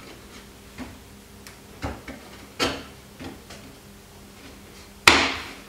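CNC-cut wooden boat frame parts knocking against each other and the construction board as a side timber is pressed and tapped home into its joints: several light knocks, then one sharper, louder knock near the end.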